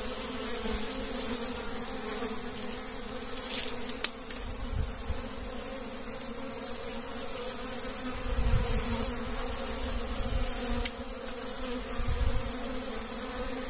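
Africanized honey bees buzzing steadily as many of them forage for pollen at flowers, a continuous many-voiced hum. A few brief bumps and rumbles on the microphone come about four seconds and eight to twelve seconds in.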